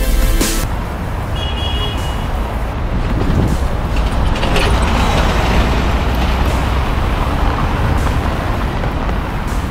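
City street traffic noise: vehicles running past with a steady low rumble. A brief high beep sounds about a second and a half in.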